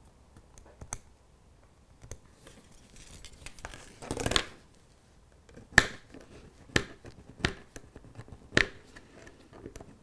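A small file scratching the metal rails of a model railway point to roughen them for soldering: quiet short scrapes, one longer scrape about four seconds in, and a few sharp clicks of the tool on the rail in the second half.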